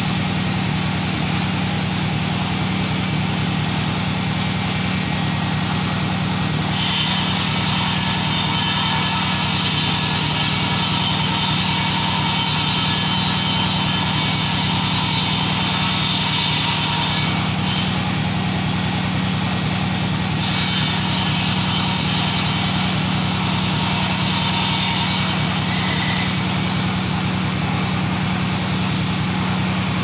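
A steady engine or motor hum, with a hiss in the upper range that starts about seven seconds in, drops out briefly around seventeen seconds and returns, then fades near the end.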